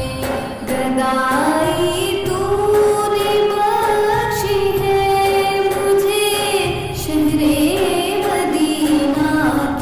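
A woman singing an Urdu naat, a devotional song, in long held notes that glide and bend ornamentally between pitches, over a low backing.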